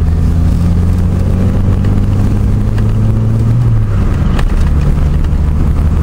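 1984 Mazda 626's engine heard from inside the cabin while driving, with road rumble. Its low note climbs slightly, then drops back a little before four seconds in.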